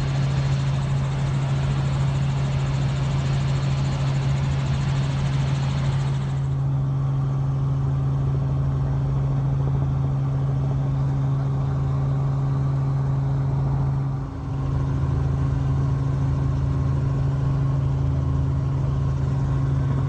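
Steady engine and rotor drone of a helicopter heard from on board, with a strong low hum throughout. The hiss drops abruptly about six seconds in, and the drone dips briefly around fourteen seconds, where the footage is cut.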